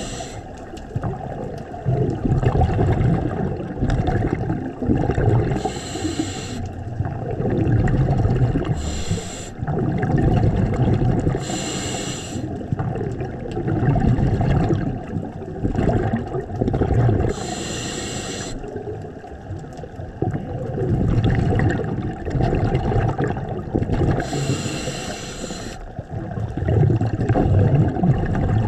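Scuba diver breathing through a regulator underwater: five short hissing inhalations at irregular intervals of about three to six seconds, each followed by a longer rumble of exhaled bubbles.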